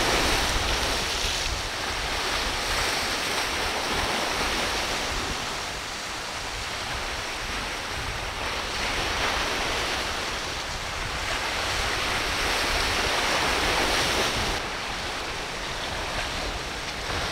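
Ocean surf washing and breaking at an inlet, swelling and easing in slow surges every few seconds, with wind buffeting the microphone as a low rumble.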